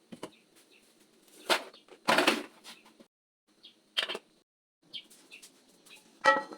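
Kitchen handling sounds: a few short rustles and knocks as things are picked up and set down, ending in a brief ringing clink near the end.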